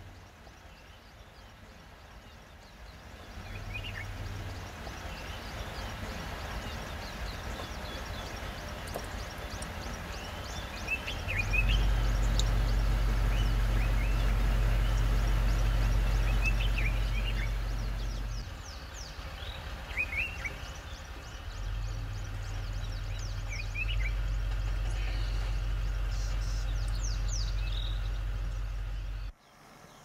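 Scattered bird chirps and short calls over a low steady rumble that comes in and cuts off abruptly twice, loudest near the middle.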